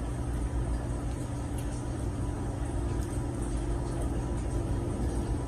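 A steady low hum with a faint even hiss of background noise, unchanging throughout.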